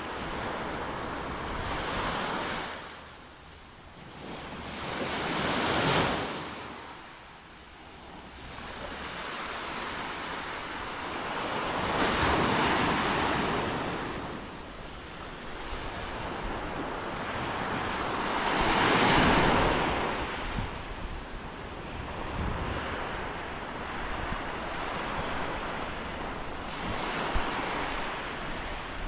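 Small Gulf of Mexico waves breaking and washing up a sandy beach, the surf swelling and fading every few seconds, with wind rumbling on the microphone.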